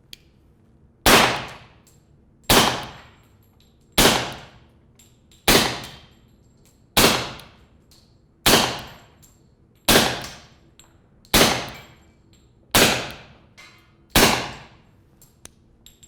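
Ten suppressed .45 ACP pistol shots from an HK45 fired through an AAC Ti-Rant 45 suppressor, evenly paced about one and a half seconds apart, each a sharp report with a short ring-off.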